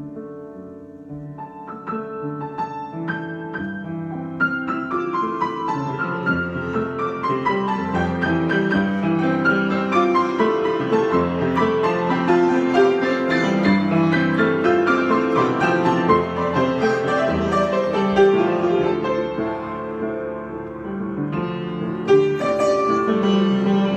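Solo piano improvisation. It starts with sparse notes, builds into dense, flowing passages, eases off, then strikes a loud chord near the end.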